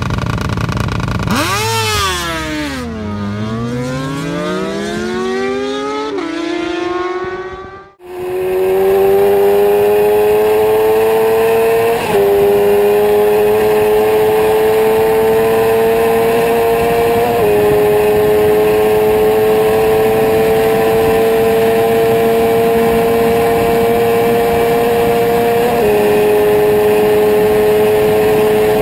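Suzuki GSX-R750's 749 cc inline-four sportbike engine revving hard: first a note that swoops up, falls away and climbs again, then a sustained high-rpm run in which the pitch creeps upward and dips briefly with each of three upshifts.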